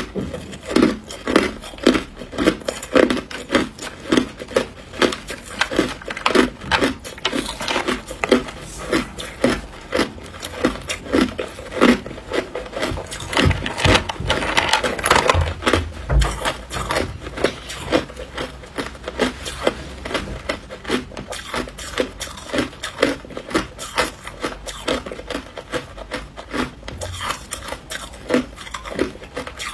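Hard ice being chewed close to the microphone: a steady run of crunches, about two a second. Around the middle, ice chunks scrape and knock in a plastic tub as a gloved hand picks through them.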